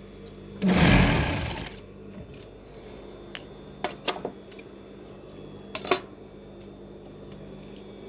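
Sewing machine running in one short burst of about a second, then several light clicks and taps.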